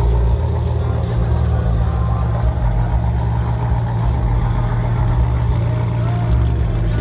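Car engine idling, a steady low rumble.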